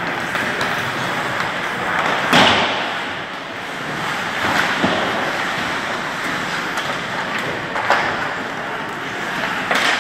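Ice hockey play in a rink: a steady hiss of rink noise with sharp knocks of stick, puck and boards, the loudest a little after two seconds in and several lighter ones later.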